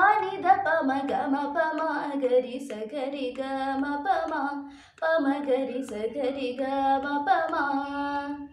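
A girl's solo voice singing a Malayalam devotional song, holding long sliding melodic lines, with a short break for breath about halfway through.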